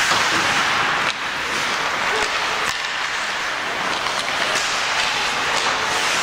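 Ice hockey rink sound during play: a steady hiss of skates on the ice and crowd noise, with several sharp clacks of sticks and puck, and a couple of faint distant calls.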